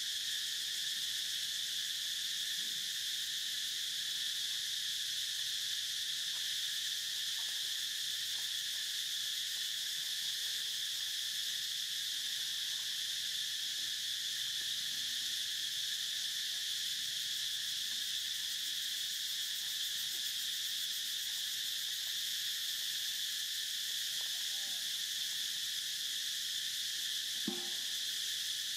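Chorus of insects droning steadily at a high pitch, with a brief faint sound near the end.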